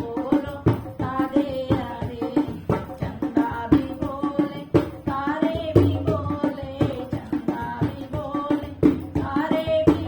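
Hindi devotional bhajan: a sung melody over a steady, even percussion rhythm.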